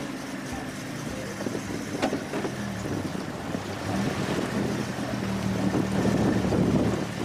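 Open safari vehicle's engine running as it drives through tall grass and shallow water, with a steady rushing of grass and water against the vehicle that grows louder in the second half.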